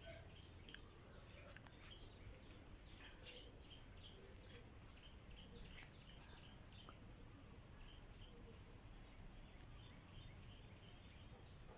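Near silence: faint ambience of many small bird chirps, each a short high falling note, over a steady high insect drone.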